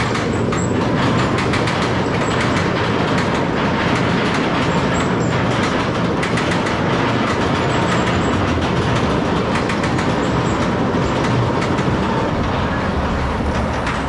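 Steel roller coaster train running on its track: a steady loud rattle and rumble with many small clicks from the wheels.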